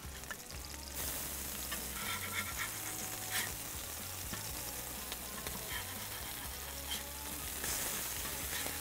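Beef smash-burger patties sizzling on a hot stainless steel flat-top griddle as they are flipped with a metal spatula. The sizzle grows louder about a second in, with a few short clicks of the spatula against the griddle.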